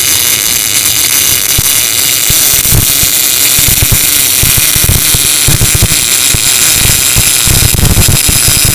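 MIG welding arc from a Tenya New 288 wire-feed welder, running steadily as a bead is laid along metal plate: a loud, even hiss with an irregular crackle of low pops.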